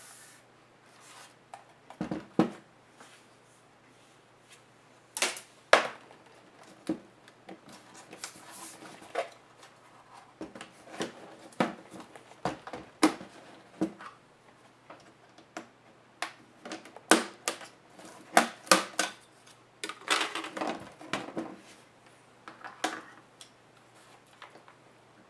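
Scattered plastic clicks, taps and knocks of a Dell XPS M1210 laptop's case being handled: the laptop is turned over and set down on the desk, its lid is opened, and the hinge cover above the keyboard is pried off. The sharpest knocks come about two and six seconds in.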